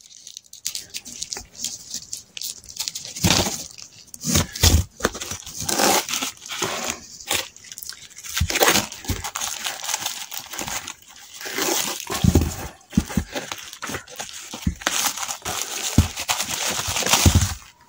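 Plastic packaging bags crinkling and rustling in irregular bursts as packed parts are handled, with a few dull knocks.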